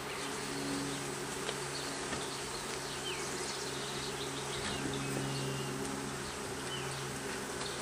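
Honeybees buzzing in a steady, even low hum around a nucleus hive being worked.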